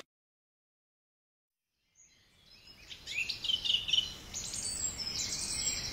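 Complete silence for about two seconds, then a birdsong ambience fades in: several birds chirping in quick high calls over a faint hiss.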